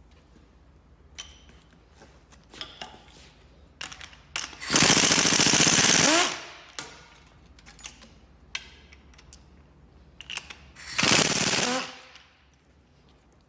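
An impact wrench hammering in two bursts, about a second and a half and then about a second long, as it runs a socket on the engine's bolts. Small tool clicks and knocks come in between.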